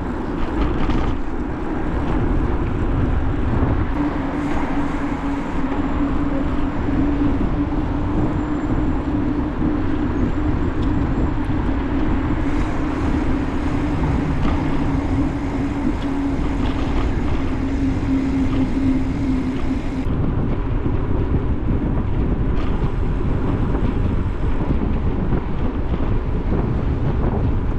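Wind rushing over the microphone and road noise while riding a bicycle at speed. A steady hum runs under it from about four seconds in and stops about twenty seconds in.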